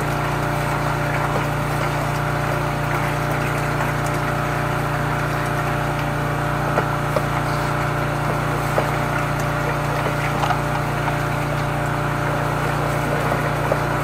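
High-pressure drain jetter running steadily, its engine-driven pump holding a constant pitch, with a few faint clicks over it.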